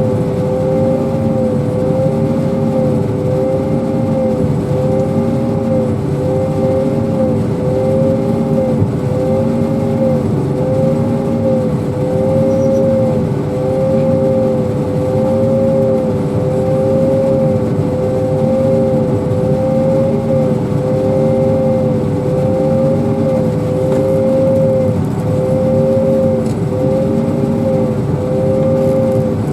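Self-propelled pea viner running while harvesting: a steady machine whine with several held tones whose pitch dips and recovers regularly, about every second and a half.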